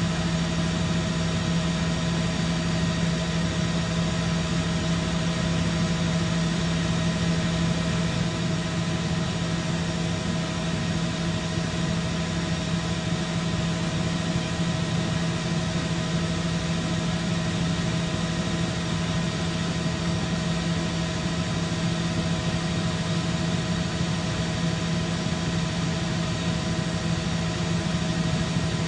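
Steady, unbroken drone of helicopter engine and rotor noise, with a strong low hum and no changes.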